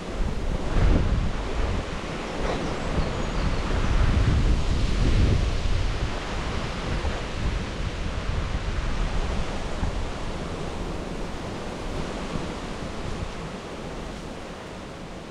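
Wind gusting across the microphone, a rumbling buffet that swells about a second in and again around four to five seconds in, then eases to a steadier rush.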